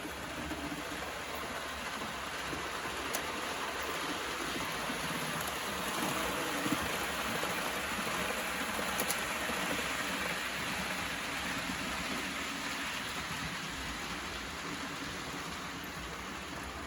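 Märklin model train running along the track, a steady rushing rumble of wheels and motor that grows a little louder toward the middle as it comes closer and then eases off, with a few faint ticks.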